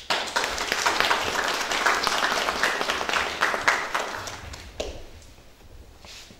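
Congregation applauding: many hands clapping together, starting all at once and dying away about five seconds in.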